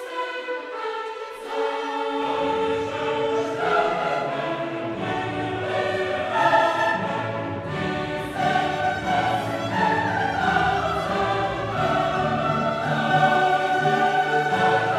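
Background music of choral singing with orchestra, sustained and swelling; a deep low part comes in about two seconds in.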